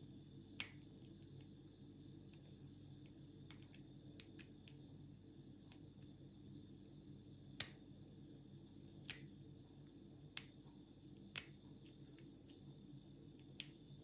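Sparse, sharp metallic clicks from a five-pin euro cylinder lock being picked with a hook pick and tension tool. The pins and core click as the core slips in and out of a false set.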